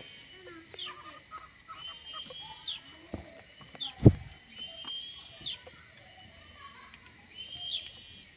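Small birds chirping in repeated short phrases, with softer calls underneath, and one sharp knock about four seconds in.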